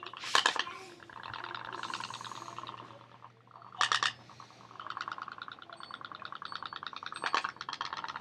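Toy pop-pop boat's little steam engine putting rapidly, dying away about three seconds in and picking up again, with a few short louder bursts. It is running rough, which the owner puts down to the wind cooling the boiler too much.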